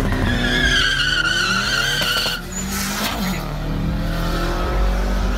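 Ford Focus ST250 and Subaru WRX STi launching off the drag-strip line. Tyres squeal with wavering pitch under wheelspin for about two and a half seconds while the engine note climbs, then the engines run on as the cars pull away.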